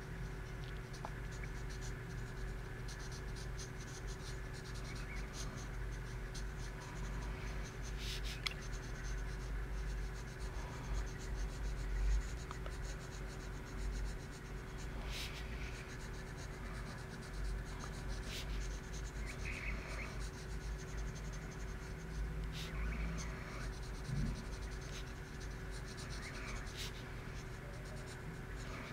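Pencil lead scratching across paper in short sketching strokes, with a few sharp ticks, over a steady low hum.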